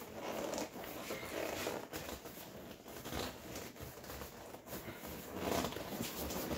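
Seat cover being pulled and worked down over the seat by hand: an irregular rustling, rubbing and scraping of the cover material, a little louder about five and a half seconds in.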